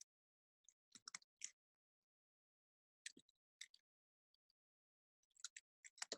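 Faint clicking at a computer: a few short clusters of quick taps over near silence.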